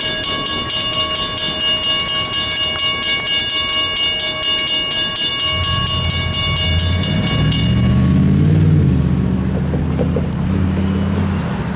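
Mechanical railroad crossing bells ringing in quick, even strokes, cutting off about two-thirds of the way through as the gates begin to rise, the sign that the crossing has cleared. From about halfway a low engine drone swells and then fades.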